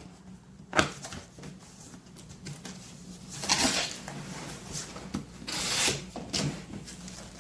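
Unboxing handling noise: a sharp click about a second in, then two short bursts of rustling and scraping, as of cardboard or plastic packaging, with small knocks and clicks between.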